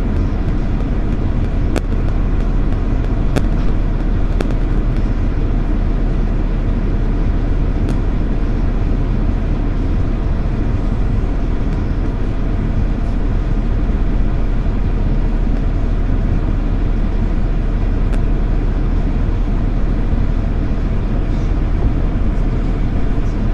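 Steady low road and engine rumble heard from inside a moving car, with no change over the whole stretch.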